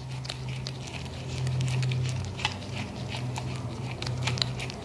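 Small, irregular clicks and ticks of a screwdriver turning a screw out of a Singer Featherweight motor housing, with gloved hands handling the motor, over a steady low hum.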